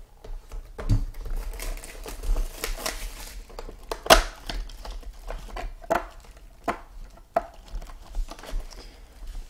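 A sealed trading-card box being unwrapped and opened by hand: packaging crinkling and tearing, with a series of sharp clicks and knocks from the box, the loudest about four seconds in.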